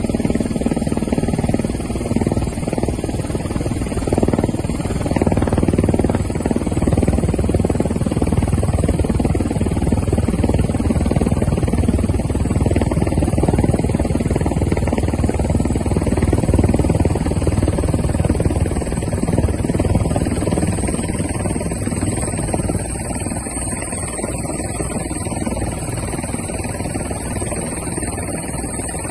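An engine running steadily: a continuous low rumble with a constant high whine above it, the whine growing a little stronger about two-thirds of the way through.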